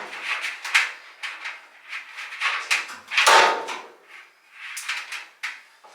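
Dryer drum and metal cabinet parts being handled during reassembly: a series of scrapes and knocks, the loudest about three seconds in.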